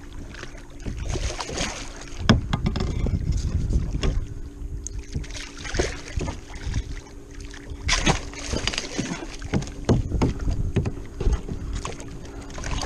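Water splashing, with sharp knocks scattered through it, as a hooked mahi-mahi thrashes at the surface beside a kayak and a gaff is jabbed at it. A faint steady hum runs underneath.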